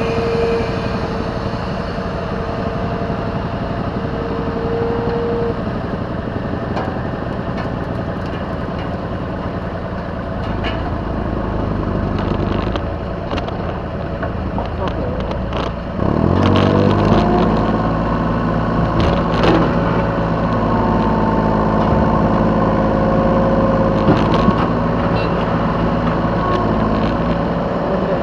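Yanmar B3 Sigma mini excavator's diesel engine running steadily under the operator, revving up about halfway through and holding at higher speed, with scattered knocks and clatter from the machine working.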